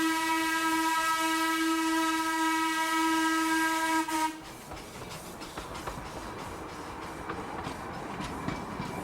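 Ambient electronic music: a steady held whistle-like tone over hiss, which cuts off suddenly about four seconds in, leaving a quieter hissing texture with faint crackles.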